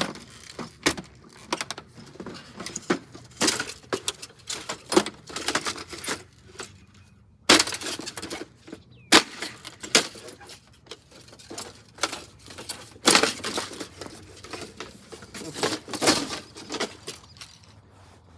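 A mini fridge being smashed and broken apart: a long, irregular run of cracks, knocks and crunching impacts, with several sharper, louder hits along the way.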